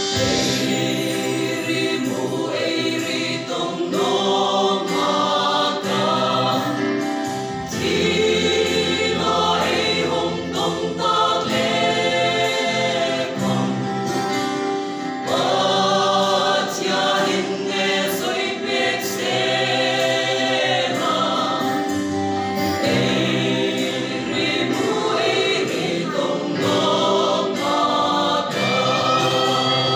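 Mixed choir of men's and women's voices singing a hymn together.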